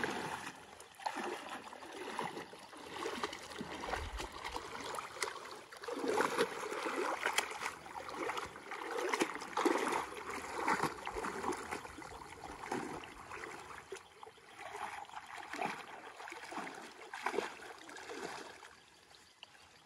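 Shallow lake water splashing and sloshing around a person wading and working their hands in it, in irregular surges that are strongest in the middle and die down near the end.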